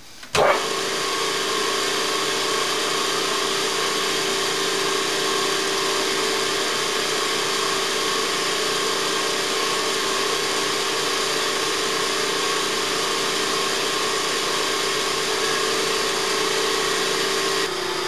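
An electric machine motor in a machine shop switches on about half a second in and then runs at a steady speed, a constant hum with a faint whine and hiss; it eases off slightly just before the end.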